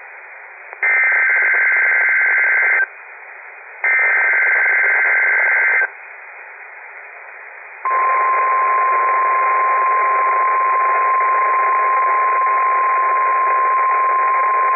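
NOAA Weather Radio emergency alert signal through a weather radio receiver with steady hiss. Two more of the two-tone SAME data header bursts play, each about two seconds long and a second apart. After a two-second gap, the long steady 1050 Hz warning alarm tone starts about eight seconds in and holds, opening the required weekly test.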